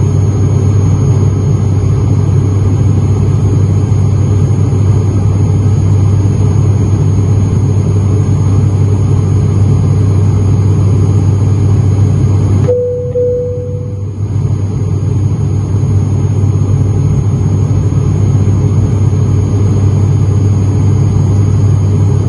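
Turboprop airliner cabin noise: the propellers and engines make a loud, steady drone with a strong low hum. About halfway through the sound dips for a second or two, with a short steady tone, then the drone comes back.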